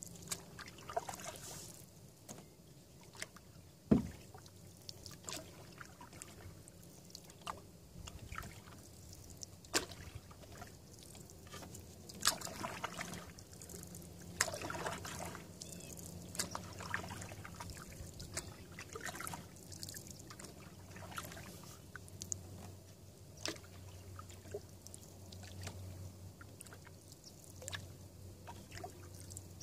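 Canoe paddling on calm water: irregular paddle strokes with water dripping and trickling off the blade. One sharp knock stands out about four seconds in.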